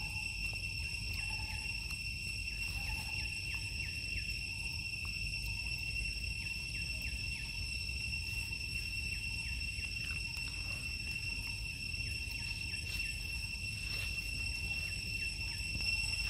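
Steady, high-pitched insect drone, one unbroken tone, over a low background rumble.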